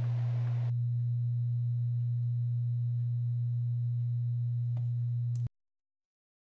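A loud, steady low hum on a single pitch, with a faint click shortly before it cuts off abruptly to dead silence about five and a half seconds in.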